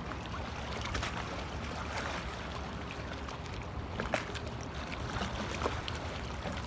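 Steady rush of river water and wind, with a low rumble and a few faint clicks and knocks.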